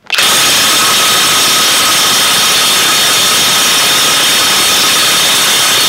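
Cordless 3/4-inch-drive Violeworks impact wrench hammering continuously at full power on an M24 bolt tightened to 1400 Nm, straining to break it loose. It starts abruptly and runs at an even level throughout.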